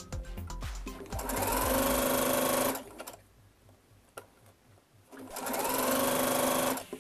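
Sewing machine running a rolled hem in two short runs, each about a second and a half long. Each run rises in pitch as the motor speeds up, then holds steady. Background music plays at the start.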